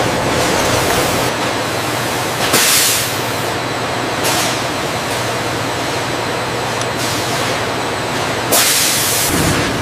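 Continuous loud rushing hiss, with two brief louder surges of hiss about two and a half seconds and eight and a half seconds in.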